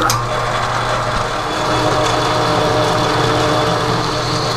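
Metal lathe running, its chuck spinning, while a small boring bar cuts into a heat-treated 4140 steel part: a steady machine hum with a few held tones over an even rushing noise. The machinist is not happy with how this bar is cutting.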